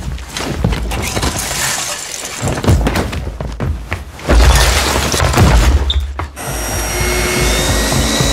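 Hurried household clatter: things grabbed, shoved and tossed about, with many quick knocks and bangs and a heavy thud about four seconds in.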